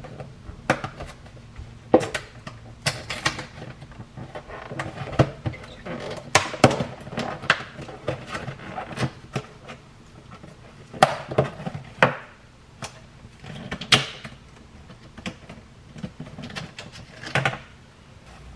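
Thin clear plastic clamshell container of salad greens being handled and opened: irregular crackles, snaps and sharp taps of the plastic, with scattered knocks.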